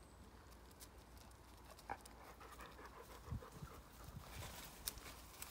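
Dog panting softly, with faint rustles and small clicks around it.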